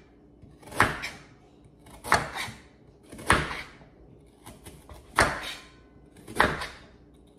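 Crinkle-cut knife chopping a raw carrot on a wooden cutting board: five sharp chops, one about every second and a bit.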